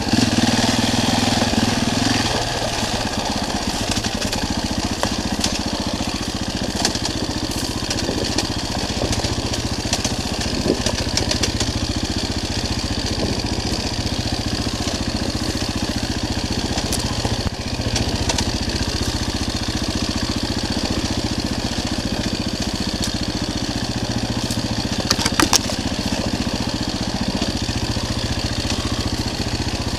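Enduro dirt bike's engine running steadily as it rides a forest trail, heard from on the bike, a little louder for the first two seconds. A few sharp clicks come near the end.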